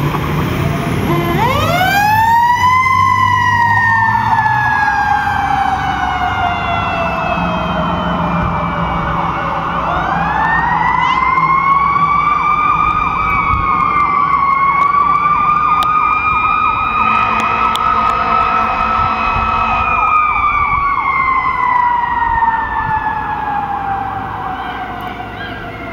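Fire engine siren winding up to a wail, then slowly winding down; it winds up again, holds with slight dips, and slowly falls away. Near the end of the held part a horn blasts for about three seconds.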